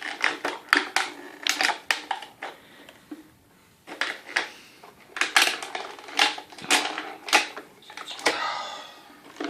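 Irregular plastic clicks, rattles and crinkling as a toy truck is worked loose from its packaging, where its parts are held in tight.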